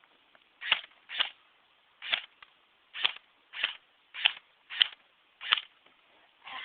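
Tokyo Marui MP5 electric airsoft gun firing BBs in single shots: nine sharp shots, roughly one every half second to second.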